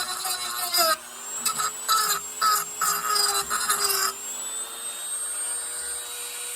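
Handheld high-speed rotary tool whining steadily while it cuts into the pinewood derby car's wood body. For the first few seconds it bites in short repeated strokes, knocking loose chips; from about four seconds in it runs freely and its pitch rises a little.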